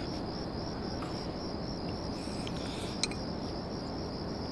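Crickets chirping steadily in a continuous high trill, with one faint click about three seconds in.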